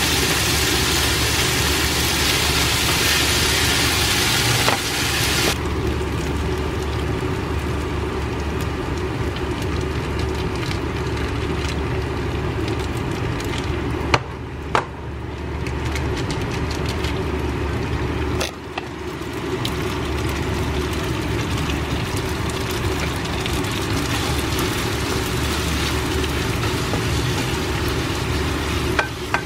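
Pasta sizzling in a frying pan on the stove as it is tossed and stirred with a wooden spatula, over a steady low mechanical hum. The hiss is strong for the first five seconds, then softer, with a few sharp knocks of the utensil against the pan.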